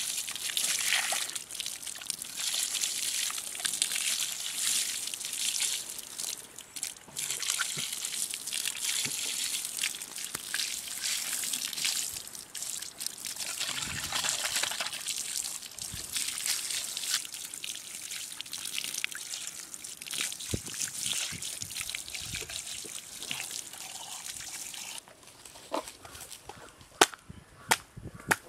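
Water pouring and splashing over a plucked turkey carcass as it is rinsed and rubbed by hand, stopping abruptly near the end. A few sharp knife chops on a wooden block follow.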